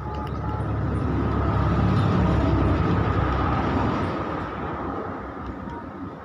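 Rumble of a passing vehicle that swells to a peak about two seconds in and fades away. Near the start there are a couple of short beeps from the phone's keypad as keys are pressed.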